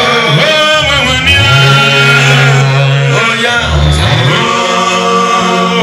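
A group of men singing together in a chant-like hymn, with long held notes and a sustained low note beneath the melody.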